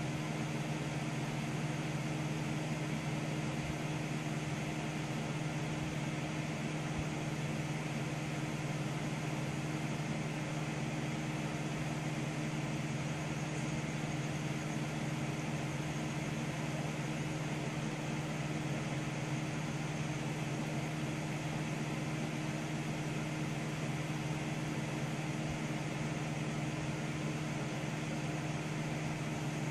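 Desktop computer running: a steady low hum with fan whir that does not change.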